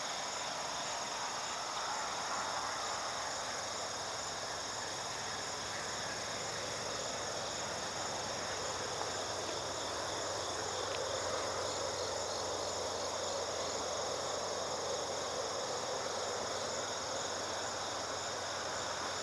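Steady chorus of crickets, several high tones held without a break, over a faint even rushing hiss.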